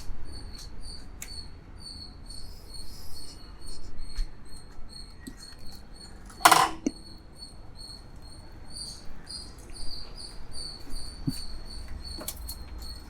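High-pitched insect chirping, a cricket's even pulses about three a second, over a low rumble. About halfway through, a single brief scraping noise is the loudest sound.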